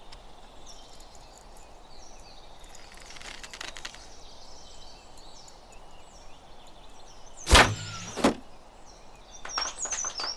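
Quiet outdoor ambience with faint bird chirps, then two sharp thwacks about three-quarters of the way through: an arrow loosed from a bow and striking the target.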